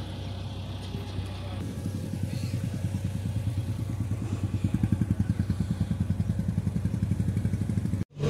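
An engine idling with a steady low throb that grows louder and more pulsing from about two seconds in, then breaks off abruptly near the end.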